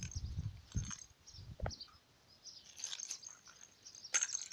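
Soft bumps and rustling close to the microphone as a fluffy cat brushes against the phone, with a short rising chirp about a second and a half in.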